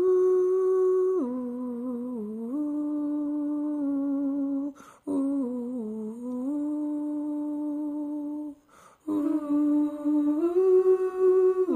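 Music: a voice humming a slow melody in long held notes that step up and down in pitch, with two short breaks.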